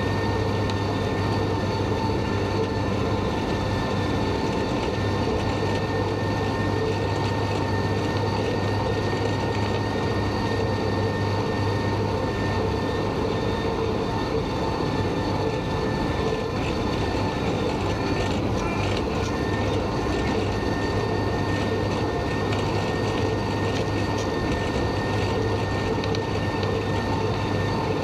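John Deere 6110R tractor's diesel engine running steadily under load while pulling a New Holland H7230 disc mower-conditioner through standing hay. Close to the mower, its spinning cutterbar and drive add a steady whine over the engine's rumble.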